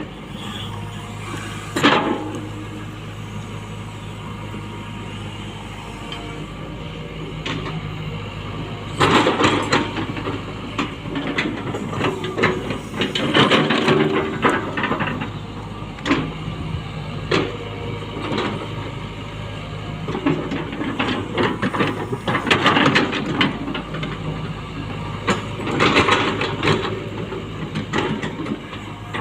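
Hitachi Zaxis 120 excavator working: its diesel engine runs steadily beneath repeated loud clattering, scraping bursts of metal on earth, most dense through the middle and again near the end.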